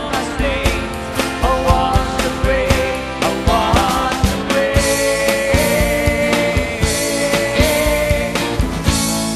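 Live rock band playing: a steady drum-kit beat, electric guitar and a lead singer. A long note is held for a few seconds in the second half.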